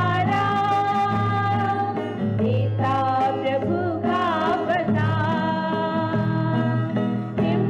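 A group of young women singing together to acoustic guitar accompaniment, holding long notes.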